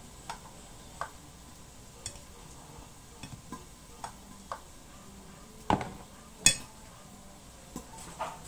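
Utensils clinking and knocking against a bowl in short, separate clicks about once a second, the loudest clack about two-thirds of the way through, over a faint steady hiss from the covered pan on the gas flame.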